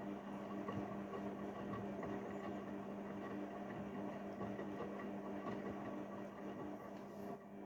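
Haier 7.5 kg front-loading washing machine running on a delicate wash cycle: a steady motor hum with irregular light crackle over it, dropping a little in level near the end.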